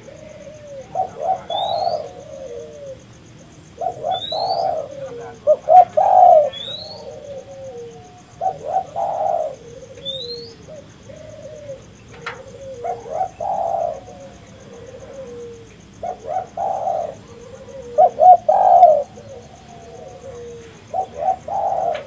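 Spotted dove (tekukur) cooing over and over, a loud phrase every two to four seconds, with softer coos in between. A thin rising chirp comes several times in the first half.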